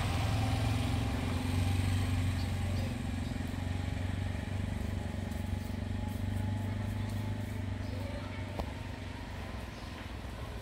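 A motor engine running steadily: a low drone that wavers slightly and fades a little toward the end.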